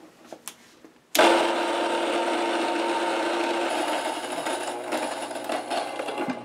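Electric stone grain mill switching on about a second in and running steadily, grinding spelt into flour. A few light clicks come before it starts, and its hum shifts slightly a few seconds later.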